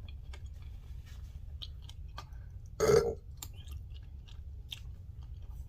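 A person chewing a bacon burger with a full mouth, close to the microphone: wet smacks and small clicks. About three seconds in there is one brief, loud sound from the mouth.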